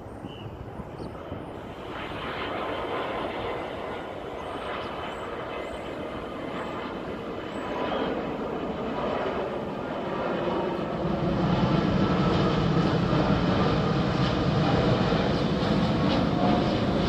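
Jet airliner's engines growing steadily louder as the aircraft approaches, with a further rise about eleven seconds in.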